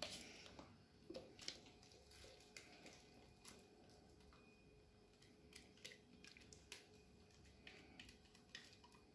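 Near silence with scattered faint clicks, taps and light scraping as a silicone spatula scrapes thick batter out of a glass blender jug into a plastic bag.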